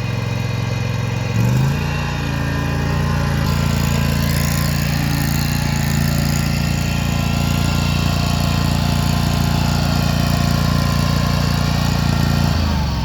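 Riding mower engine running, its pitch rising about a second and a half in as it is throttled up, then holding steady before dropping near the end as it throttles back.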